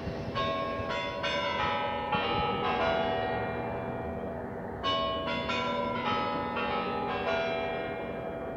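The Kremlin chimes of the Spasskaya Tower clock ringing a tune of bells at several pitches, each strike ringing on. There is a short pause about four seconds in before the tune resumes.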